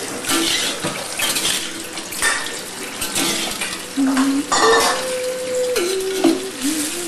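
Metal spatula scraping and clattering against a wok in repeated strokes as vegetables are stir-fried, over a steady sizzle.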